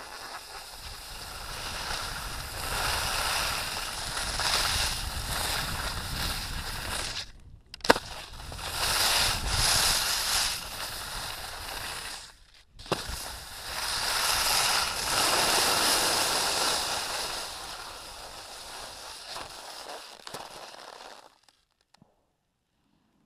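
Rushing wind on the camera microphone and edges scraping over packed, groomed snow on a fast downhill run, swelling and easing with the turns. Twice the noise cuts out for about half a second and comes back with a sharp knock. Near the end it fades and goes almost silent as the rider stops.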